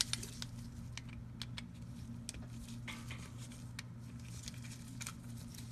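Flathead screwdriver turning out the brush-holder screws of a starter motor: scattered light metal clicks and small scrapes.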